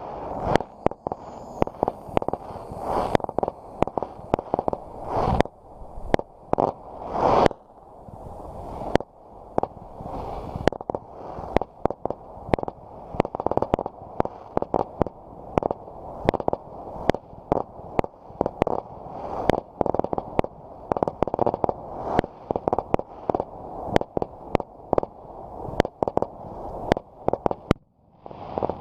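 Fireworks going off in a continuous barrage: sharp bangs and cracks several times a second over a steady rumble, with a brief lull near the end.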